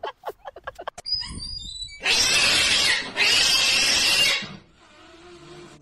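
A cat hissing, two long loud hisses back to back, followed by a faint low growl.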